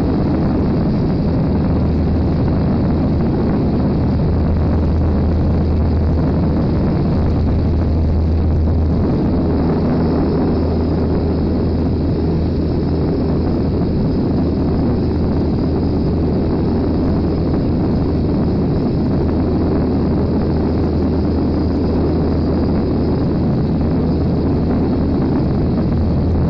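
Scheibe SF-25C Falke motor glider's piston engine and propeller droning steadily in cruise, heard from inside the cockpit. The steady low hum shifts slightly in tone about nine seconds in.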